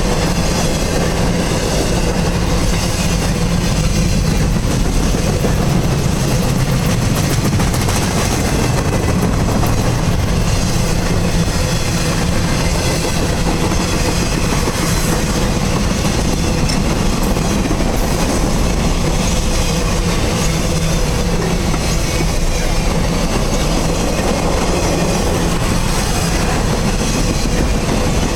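Cars of a CSX military container train rolling past at a steady speed, with a continuous rumble and rattle of steel wheels on the rails.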